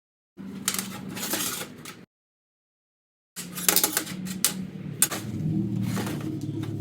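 Clicks and rattling of hard parts being handled over a low steady hum, cut off twice by complete audio dropouts: a recording glitch.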